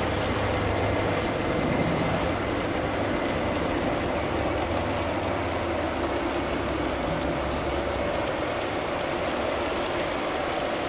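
G-scale model freight cars rolling past on garden-railroad track: a steady rolling rumble of the wheels on the rails, with a few faint clicks.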